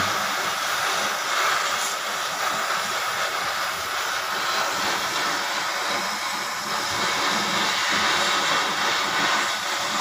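Gas cutting torch hissing steadily as its flame burns through the steel lock holding the drum inside a heavy-duty washing machine, cut away so a new bearing can be fitted.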